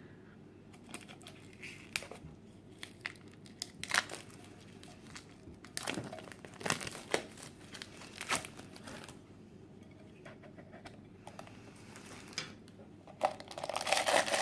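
Vinyl figure's packaging being opened by hand: scattered crinkles, rustles and small clicks of tearing and handling, turning into denser, louder plastic crinkling near the end.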